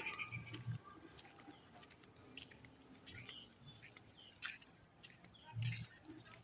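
Faint bird chirps: a couple of quick runs of high notes about half a second to a second in, with scattered soft clicks through the rest.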